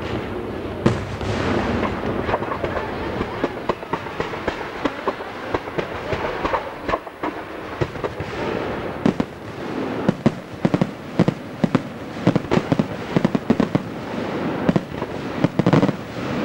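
Aerial fireworks display: shells bursting in the sky, with a rapid run of sharp bangs and crackles from about nine seconds in.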